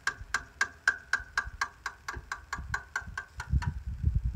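Steady, evenly spaced clicking, about five sharp clicks a second, each with a brief ringing tone, with a short low rumble of handling about three and a half seconds in.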